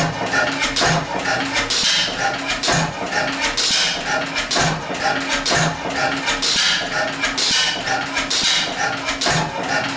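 1911 Deutz E3 stationary gas engine running, with a regular knock and a metallic clatter from its valve gear about once a second over a steady low hum.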